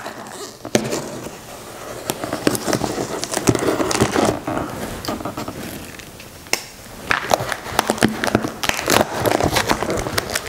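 Plastic wrap and packing tape being cut and ripped off a cardboard shipping box, a rough crinkling and crackling of plastic and cardboard, with the box flaps pulled open near the end.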